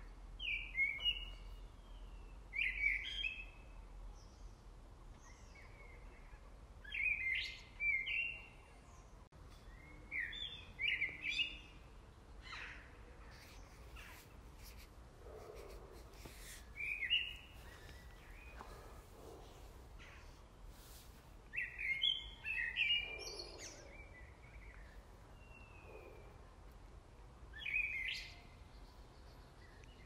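A songbird singing a short, bright phrase that repeats every few seconds, over a faint steady background.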